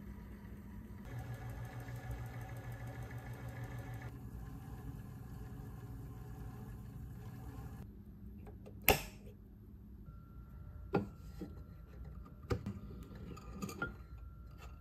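L&R Master watch-cleaning machine running its wash cycle, its motor spinning the parts basket in the cleaning solution with a steady hum. After about eight seconds the motor stops; a sharp click follows, then a few lighter clicks and knocks as the machine is handled.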